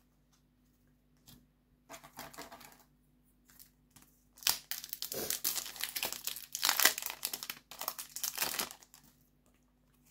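Foil booster-pack wrapper crinkling and tearing as it is ripped open by hand, in irregular crackly bursts that come thickest in the second half.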